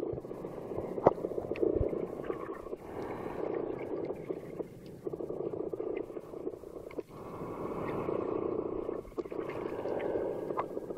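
Muffled underwater water noise picked up by a waterproof camcorder's microphone, swelling and fading every second or two, with scattered sharp clicks.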